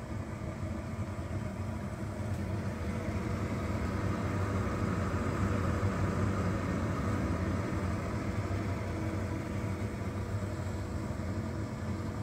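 Lellaluka air fryer running at 200 °C: a steady whir from its fan, with a faint hum.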